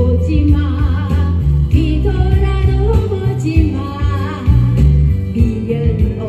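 A woman singing a Korean trot song into a microphone with vibrato, over a loud backing track with a steady bass line.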